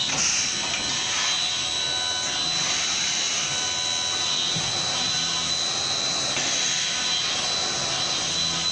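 CNC vertical machining centre milling a metal part under flood coolant: a steady high-pitched spindle whine over a constant hiss of coolant spray and cutting.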